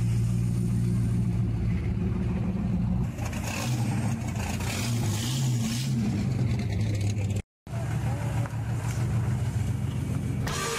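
Classic car engines running at idle: a steady low drone at first, then a rougher, wavering engine note from a second car. The sound cuts out briefly about seven and a half seconds in, and music starts right at the end.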